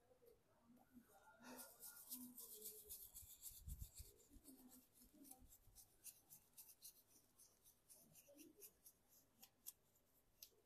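Faint scrubbing with a brush: a quick run of small scratchy strokes that starts about a second and a half in and thins out toward the end.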